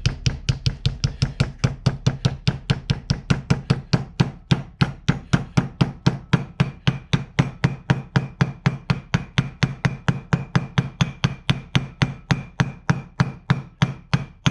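Hammer tapping a new seal into a 6.0 Powerstroke truck's rear wheel hub, an even run of about four strikes a second with a faint metallic ring under the blows.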